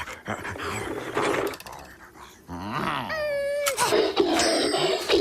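Cartoon sound effects with a dog-like jackal voice growling and whimpering, broken by clicks, a short pitched cry about three seconds in and a high held tone near the end.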